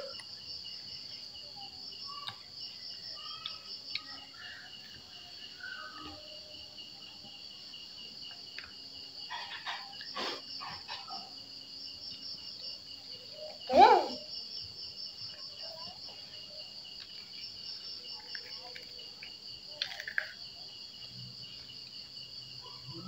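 Insects chirping in a steady, high, fast-pulsing trill. A brief loud voice sound cuts in about two thirds of the way through.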